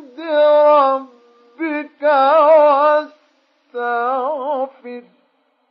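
Male Quran reciter chanting in the mujawwad style: long, melodically ornamented held notes in four phrases, the last one wavering with strong vibrato, ending about five seconds in. The voice is dry, with no added echo.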